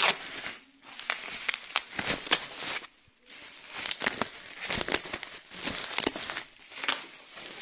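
A cardboard box being pulled open by hand, with its flaps scraping and the bubble-wrap packing inside crinkling, in a run of quick crackles and rustles with a brief pause about three seconds in.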